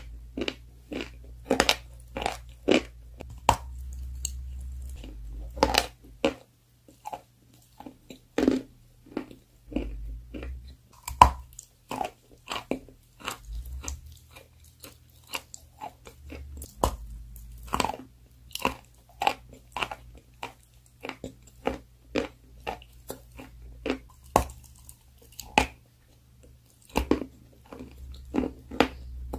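A person chewing and biting a crunchy food close to the microphone: sharp, irregular crunches about once or twice a second. A steady low hum sits underneath.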